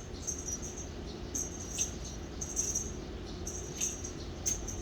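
A cat playing with a toy: about six brief, light, high-pitched rattles spaced unevenly, over a steady low hum.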